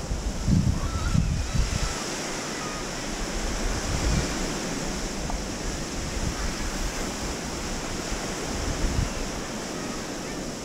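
Small sea waves washing up and draining back on a sandy beach, a steady rush of surf. Gusts of wind buffet the microphone with a low rumble, strongest about a second into the clip.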